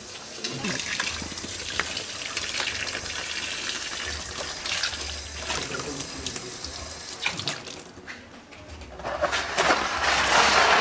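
Water splashing and sloshing in a plastic basin as clothes are washed by hand, with many small splashes, and a louder rush of water near the end.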